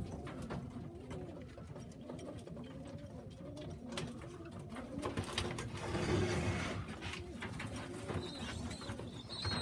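Domestic pigeons cooing, low wavering coos, with scattered light clicks and a brief rustle a little past the middle.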